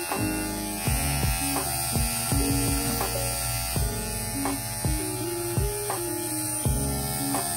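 Kemei KM-2002 cordless hair clipper running against the chin while trimming beard stubble: a steady motor-and-blade hum whose pitch shifts a little as the blades meet the hair, with short clicks now and then.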